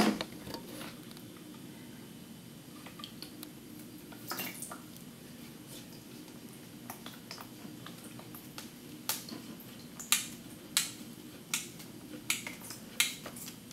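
Handling noise of a YSI sonde going into a plastic bucket of storage solution: a loud knock at the start, then scattered sharp clicks and taps, most of them close together in the last few seconds, as the sonde knocks against the bucket.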